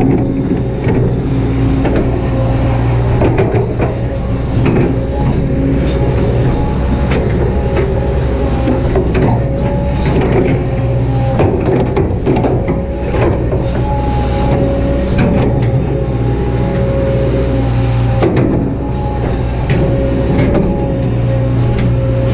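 Kobelco SK200-8 hydraulic excavator's diesel engine running steadily under load, with a steady hydraulic whine, while the bucket works the ground with repeated short knocks and scrapes.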